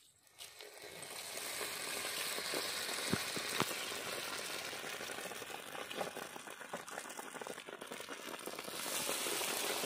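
Hot oil in a kadai sizzling and bubbling as breadcrumb-coated bread samosas are dropped in to deep-fry. The sizzle starts about half a second in, builds over the first second, then holds steady with scattered crackles.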